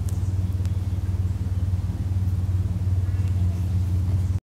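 Steady low mechanical hum, like a motor or machine running without change. It drops out abruptly for a moment near the end.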